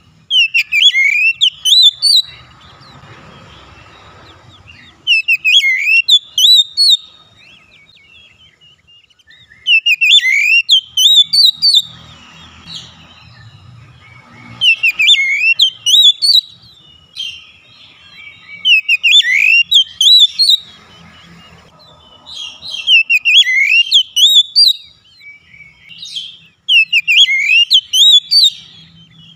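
Oriental magpie-robin (kacer) in full song: about seven loud phrases of quick, sweet whistled notes that swoop up and down, each a second or two long, repeated every few seconds.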